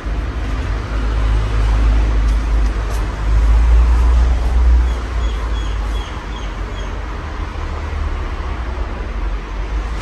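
Casablanca Mercury ceiling fan with a Samsung K55 motor running, a steady rush of moving air with a low rumble that swells about a second in and eases off around six seconds.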